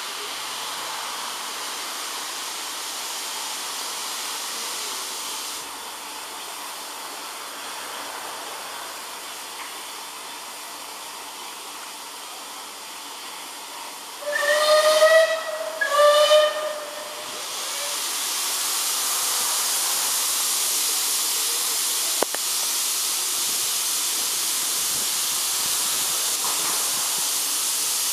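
SR West Country class steam locomotive hissing steam, then giving two blasts on its steam whistle about halfway through, each a little over a second long, the signal before departing. After the whistle the steam hiss comes back louder and steady.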